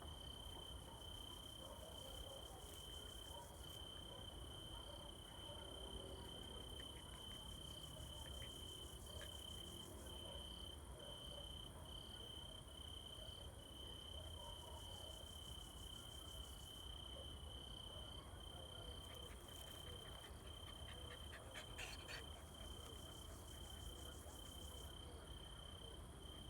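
Crickets chirping on a quiet evening: a faint, steady, high pulsing trill, with a second, higher insect line above it. A brief cluster of short high sounds comes about twenty seconds in.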